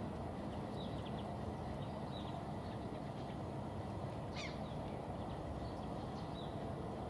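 Outdoor riverbank ambience: scattered short bird chirps over a steady low rumble, with one longer call sweeping down in pitch about four seconds in.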